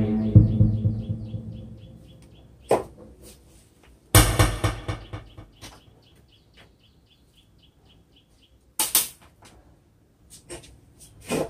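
BBS U4100 wireless handheld microphones being handled and set down, each knock picked up and played through the karaoke sound system with an echo trailing after it; the loudest knock comes about four seconds in. A faint high chirping repeats steadily, about four times a second, between the knocks.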